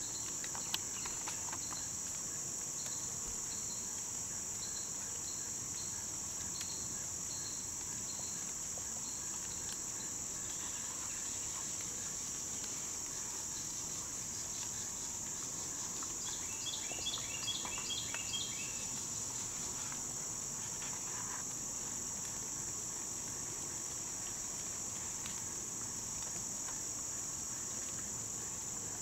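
Steady high-pitched chorus of crickets and other insects. A slow regular chirp repeats through the first ten seconds, and a brief run of rapid chirps comes about 17 seconds in.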